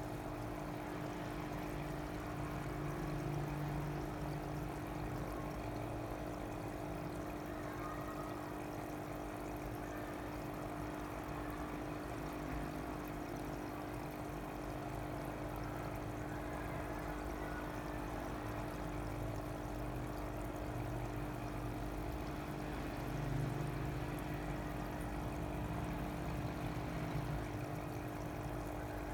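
Water pouring and trickling steadily over a continuous machine hum, the sound of running aquarium pumps and water circulating in fish tanks.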